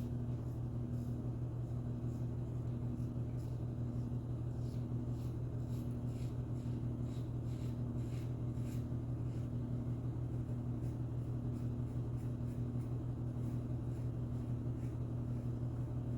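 Laundry machine running steadily in the background, a low hum with a fainter tone that pulses about once a second. Over it, faint irregular scrapes of a 1961 Gillette Aristocrat adjustable safety razor cutting stubble on a side-to-side pass.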